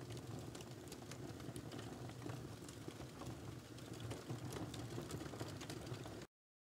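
Wood fire crackling faintly in a fireplace: many small sharp pops over a steady low rumble. It cuts off suddenly about six seconds in.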